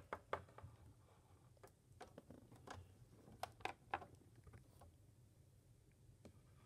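Light taps and clicks of plastic Littlest Pet Shop figurines being moved by hand and set down on a tabletop: about ten small knocks in the first four seconds, over a faint room hum.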